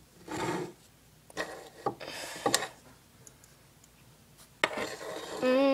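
Small plastic clicks and rustling from Lego toys being handled, a few sharp ticks close together. A short bit of voice comes near the end.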